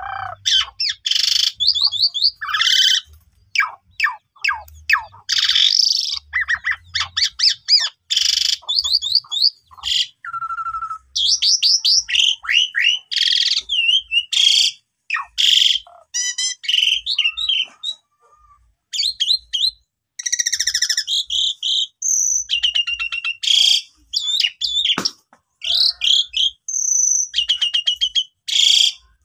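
Javan pied starling singing a long, varied song of loud chattering notes, rapid trills and whistles in quick short phrases, with brief pauses between them.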